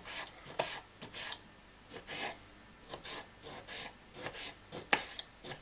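Kitchen knife cutting raw potato on a wooden cutting board: a string of short, irregular rasping cuts, with a sharper knock of the blade on the board near the end.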